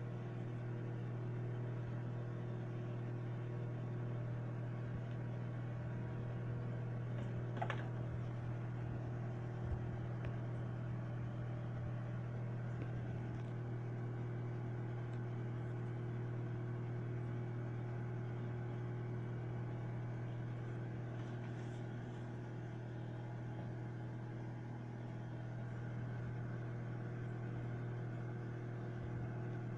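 Microwave oven running mid-cycle, a steady low electrical hum with its fan and turntable, while it cooks brownie batter. A brief faint tick about eight seconds in.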